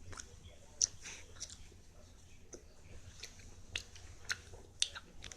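Wet mouth smacks and clicks of someone chewing a large wad of bubble gum, a smack about every half second.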